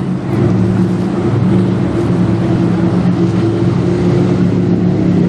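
Boat engine running at a steady drone, its pitch holding constant.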